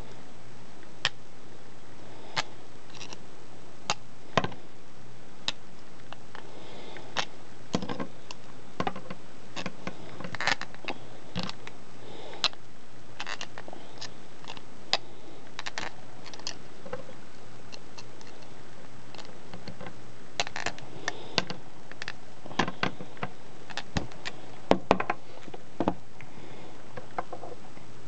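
Small pliers clicking and scraping on a banana plug as it is screwed into a tapped plastic Loc-Line nozzle: scattered irregular sharp clicks, over a steady hiss.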